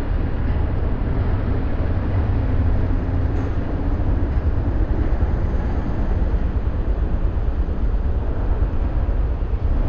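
Steady low rumble of a car and the motorbike traffic around it moving slowly along a busy city street, picked up by a camera mounted on the outside of the car.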